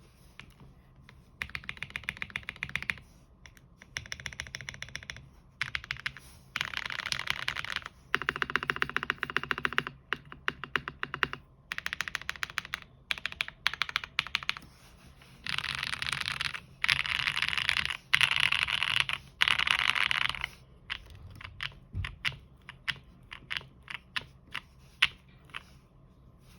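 Scuffed E-Type gasket-mount mechanical keyboard with lubed and filmed Tecsee Techno Violet switches, a POM plate and PBT keycaps, typed on in fast runs of keystrokes separated by short pauses. In the last few seconds the keys are pressed one at a time.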